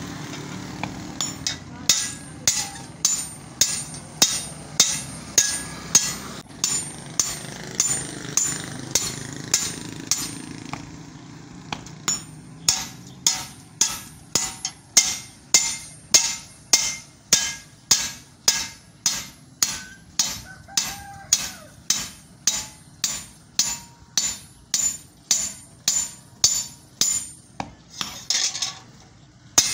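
A hammer striking metal in a steady rhythm, about two blows a second, with a short pause near the middle. This is the kind of hammering done while repairing a chaff cutter. A low steady hum runs under the first blows and fades out.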